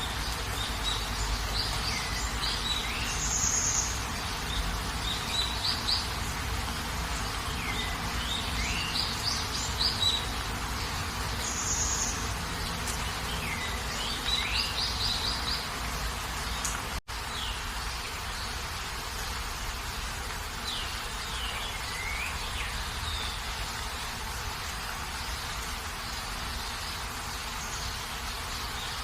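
Steady rain hiss with birds calling over it: quick series of high chirps and falling whistled notes every few seconds, fewer in the second half. The sound cuts out for an instant a little past halfway.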